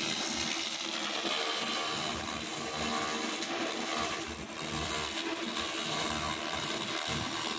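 200 W pulsed fiber laser cleaning head firing on a stained board, a steady buzzing hiss of the beam ablating the surface, with a low steady hum underneath.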